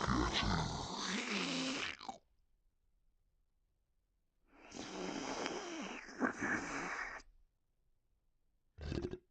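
Two long, noisy cartoon sound-effect bursts, the first about two seconds and the second nearly three seconds, with a silent gap between them and a short burst near the end.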